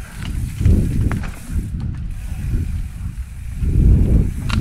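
A bike ridden over a rough dirt trail: mechanical rattling and clicking over a low rumble of ground and wind noise that swells twice, with a sharp clack near the end.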